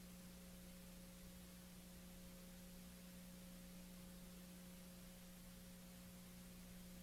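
Near silence: a faint, steady electrical hum over even hiss, with nothing else heard.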